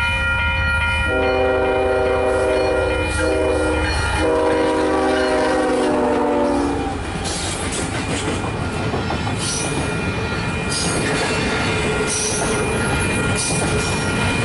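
Diesel freight locomotive's air horn sounding a multi-tone chord in blasts: long, short, then long, ending about seven seconds in. This finishes the long-long-short-long grade-crossing signal. Then a double-stack container train rolls past, its wheels clicking over the rail joints with a faint steady squeal.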